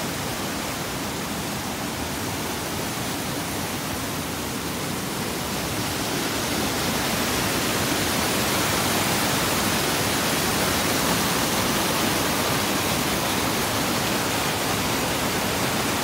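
Mountain stream cascading over rocks in a steady rush of water, growing louder about six seconds in.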